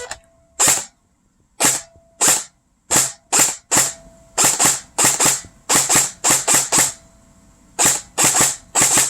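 Tippmann Tactical Commando airsoft electric gun with a Jefftron Leviathan trigger and 16:1 gears, fired one shot at a time on semi-auto: about seventeen sharp single cycles, singly and in quick runs of two or three, with a longer pause near the end.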